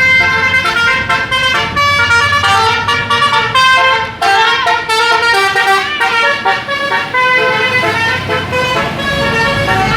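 Bus telolet horn playing a quick melody of several notes, the pitch jumping to a new note several times a second without a break.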